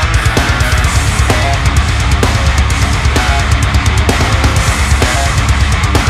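Background music: a heavy rock track with a steady drum beat.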